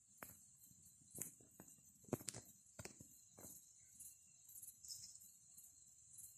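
Crickets chirping steadily in a fast, even pulse. Over them come a run of short, faint knocks and crunches in the first half, the loudest about two seconds in, then only the crickets.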